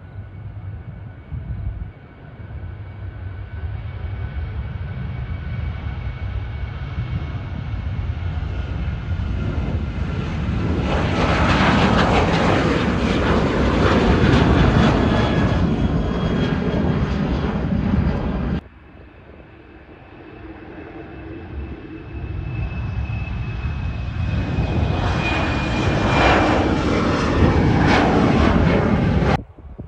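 Jet engines of a Rex Boeing 737-800 at takeoff thrust, growing steadily louder as it climbs overhead, with a high whine sliding slowly lower in pitch; it cuts off abruptly about two-thirds through. A Qantas-liveried jet climbing out after takeoff then builds the same way to a loud peak near the end before another abrupt cut.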